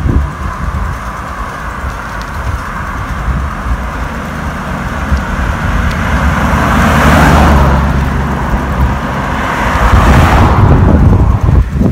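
Two motor vehicles passing close to a moving bicycle: a van swells up and fades about seven seconds in, then a car rushes by about ten seconds in. Under it, a steady rumble of wind on the microphone from riding.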